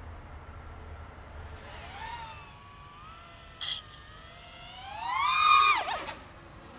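Flypro XJaguar racing quadcopter's brushless motors and propellers whining, the pitch sliding up and down with the throttle. The whine swells to its loudest about five and a half seconds in and then drops off sharply.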